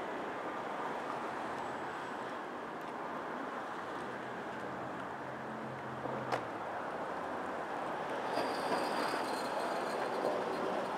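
Steady noise of city street traffic, with a sharp click about six seconds in and a thin high squeal in the last few seconds.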